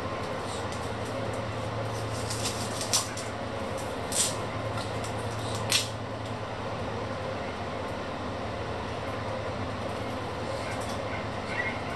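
A small kitchen knife peeling an onion: three sharp clicks and snaps in the first half, over a steady background rumble with a low hum.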